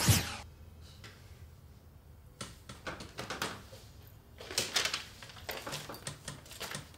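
A music cue ends with a final hit right at the start; then scattered light knocks, clicks and rustling from objects and paper being handled as things are rummaged through on a cluttered coffee table.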